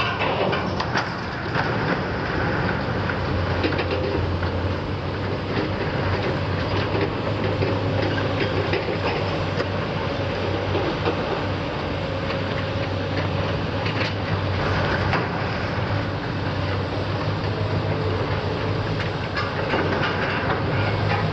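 Tracked hydraulic excavator's diesel engine running steadily under load while its demolition grapple works scrap steel tank plate, with metal clanking and scraping now and then.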